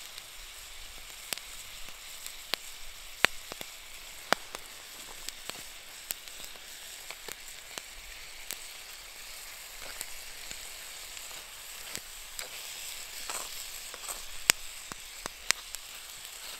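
Moose meat, onions and potatoes frying in a pan: a steady sizzle with scattered sharp pops and spatters.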